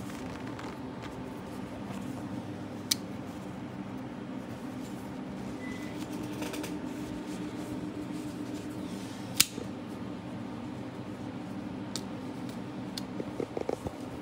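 Spring-assisted folding knife being worked open and shut, its blade snapping into place with sharp single clicks, the loudest about three seconds in and again about nine seconds in, and a quick run of small clicks near the end. A steady low hum runs underneath.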